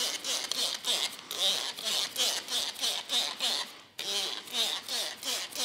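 Trigger spray bottle squirting cleaner onto a car hood: quick repeated sprays, about two a second, each a short hiss, with a brief break about four seconds in.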